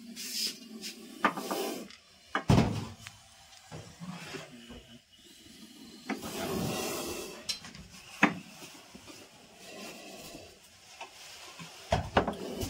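Irregular knocks, scrapes and rubbing, as of wooden and household objects being handled and shifted, with a longer rushing noise about six seconds in.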